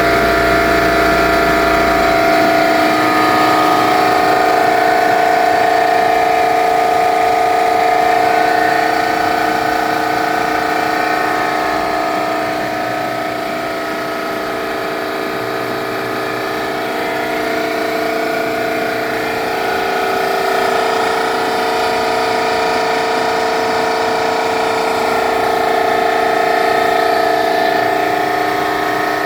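Eastwood QST-30/60 scroll air compressor running, a steady whine made of several held tones that eases slightly in level partway through; the owner suspects a bad bearing.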